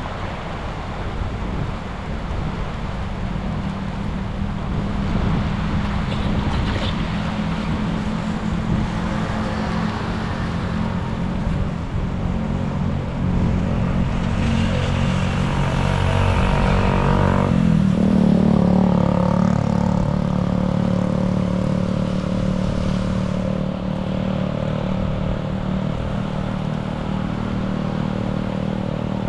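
An engine running steadily throughout, with a brief drop in pitch and recovery about seventeen seconds in, over a steady rushing noise and some clatter.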